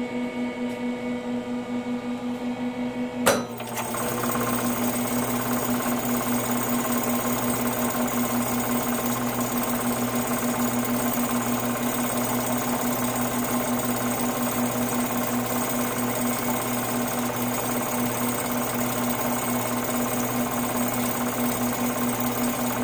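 SPEX SamplePrep 8000D Mixer/Mill running: the electric motor hums while the two vial clamps shake back and forth in a steady, rapid mechanical rattle. A sharp click comes about three seconds in, after which the rattle sounds fuller.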